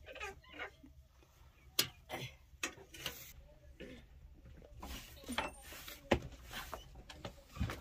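Scattered sharp clicks and knocks at irregular intervals: metal kettles and pots being handled on a wood-fired hearth.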